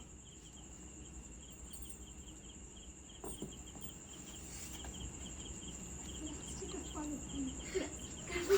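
Insects chirping steadily: a thin high whine over a pulsing trill, about three to four pulses a second. A few faint clicks come near the end.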